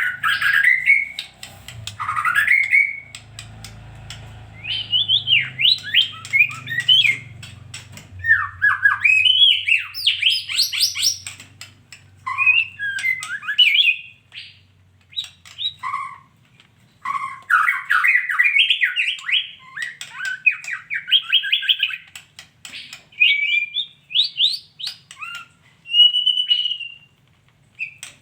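Female white-rumped shama calling in phrases of quick, varied chirps and whistled glides, with short pauses between phrases.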